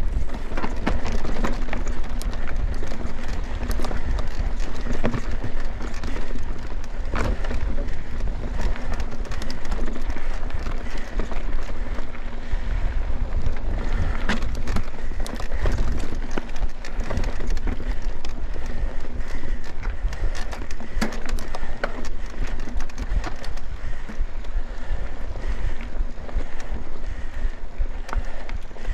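Mountain bike riding fast down a dry, dusty forest singletrack, heard from on the bike: a steady rumble of tyres on dirt with constant rattling, clicks and knocks as the bike goes over bumps and roots.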